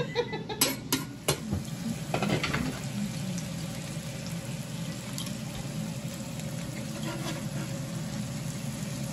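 Food frying with a steady sizzle, after a few sharp clinks of utensils in the first couple of seconds.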